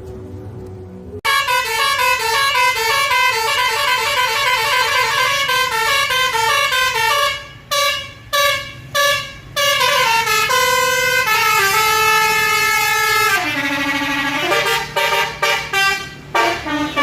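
Bus 'telolet' musical air horn of the Basuri type playing a fast stepping melody of several tones at once, starting about a second in. Midway it gives a few short blasts, then holds a long chord, then ends with a run of rapid short toots.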